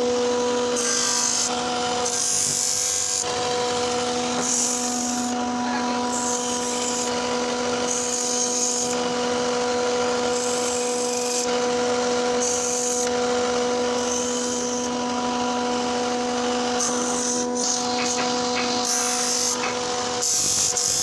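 Bench-top combination belt and disc sander running with a steady motor hum. A small block of wood is pressed against the abrasive, giving bursts of gritty rasping that come and go every second or so as each pass is made.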